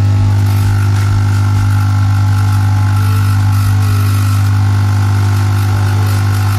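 Lavazza A Modo Mio capsule espresso machine's pump running with a loud, steady buzzing hum while a stream of water pours from the dispenser. This is a test cycle after cleaning the limescale-clogged pressure valve. The hum stops suddenly at the very end.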